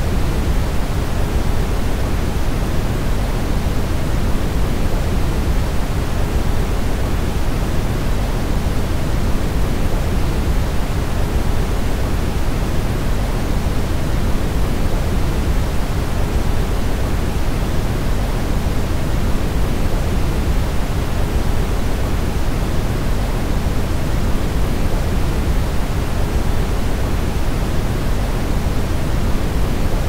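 Brown noise: a steady, unchanging rushing noise, heaviest in the deep bass and growing fainter toward the treble, like a deep rumble more than a hiss.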